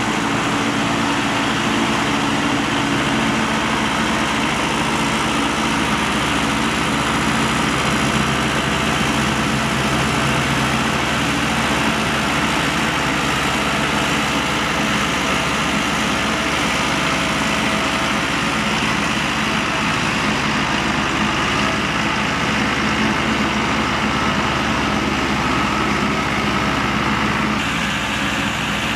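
Tractor diesel engines running steadily under load as they pull rotary tillers through a flooded rice paddy.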